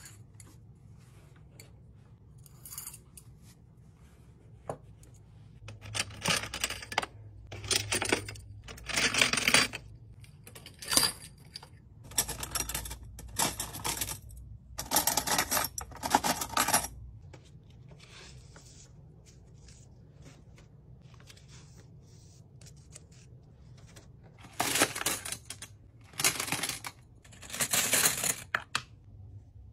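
Reusable metal and glass straws and utensils clinking and rattling as handfuls are pulled from plastic bins, in bursts a second or two long: several through the middle, a quiet spell, then more near the end.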